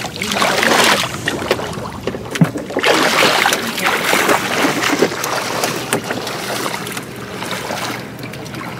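Shallow floodwater splashing and sloshing in uneven surges, stirred up by wading and pushing a côn push net through it. The surges ease off a little near the end.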